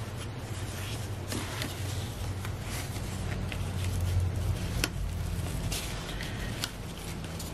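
Faint rustling and light clicks of check ribbon and card stock being handled as a bow is tied onto a card, a few scattered ticks over a steady low background hum.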